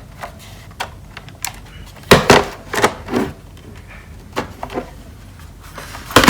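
Irregular plastic clicks and knocks as the Durgod K320 Taurus keyboard's case is handled and pried apart, with its hooked clips worked loose. The loudest cluster of knocks comes about two seconds in.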